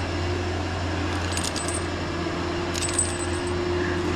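Metal climbing hardware (carabiners and rigging gear) jingling against each other twice, in short bursts about a second and a half and three seconds in, over a steady low hum.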